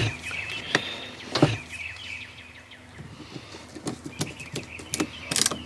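Hand screwdriver clicking and scraping against the plastic flange of a boat glove-box hatch, a few sharp knocks and clicks, as screws are started by hand into holes hidden under fresh caulk.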